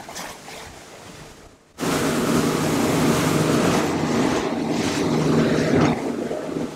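Rush of wind and water past a boat's hull. Just under two seconds in it jumps sharply to a much louder, steady drone of Yamaha 300 outboard motors running at speed, over churning wake spray and wind on the microphone, easing somewhat near the end.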